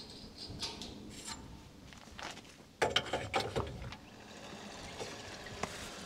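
Fuel running from an overhead farm fuel tank through a hose and nozzle into a ute's tank, a faint steady flow, with a few knocks about three seconds in.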